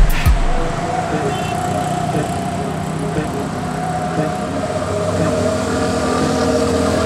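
Road traffic with auto rickshaw engines running, a steady rumble with a faint sustained whine.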